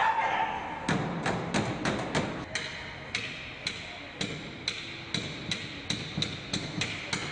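A hard object held in the fist striking a Ford pickup's driver-side window again and again, a quick uneven series of sharp knocks at roughly two a second; the glass is already cracked into a spiderweb.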